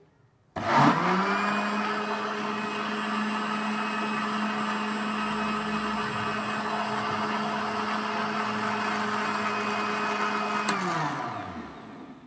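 Countertop electric blender switched on about half a second in, spinning up quickly to a steady motor whine as it blends bananas, milk and ice into a milkshake. Near the end a click as it is switched off, and the motor winds down with falling pitch.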